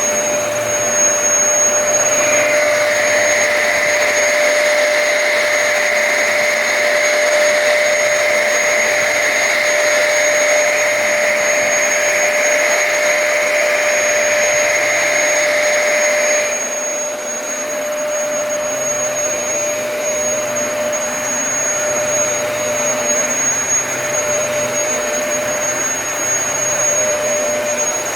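Dyson DC33 Multi Floor upright vacuum cleaner running steadily while vacuuming carpet with its motorised brush head, a constant motor whine over the rush of air. About halfway through its tone changes as a higher part of the sound drops away and it becomes slightly quieter.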